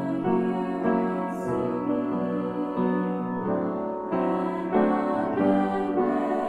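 Piano accompaniment to a choral song playing slowly, a new note or chord about every half second.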